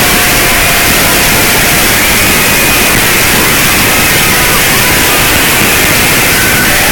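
A loud, steady hiss of noise, with faint wavering tones running through it.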